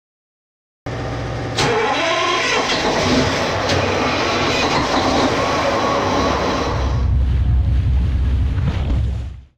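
A 60-foot sportfishing boat's engines running, with a low pulsing under a broad steady noise. There is one sharp click about a second and a half in, and the low end grows louder from about seven seconds. The sound cuts in abruptly and cuts off just before the end.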